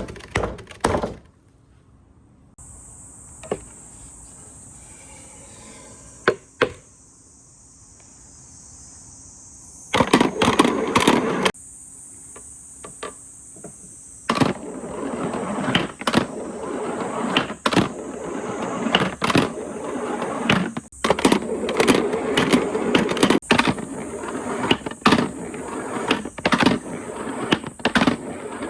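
Marbles rolling and clattering down marble-run slopes: a short rolling run about ten seconds in, then from about halfway a continuous rolling rumble with frequent clacks of marbles hitting the track and each other.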